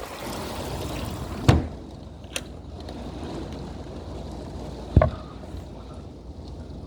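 Heavy rain falling, a steady hiss, with two loud thumps, about a second and a half in and again about five seconds in, and a sharp click between them.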